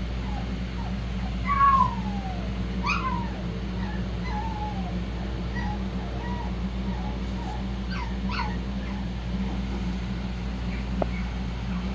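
Young shih-poo puppies squeaking and whimpering: several short, high cries that slide down in pitch, the loudest about a second and a half in, over a steady low hum.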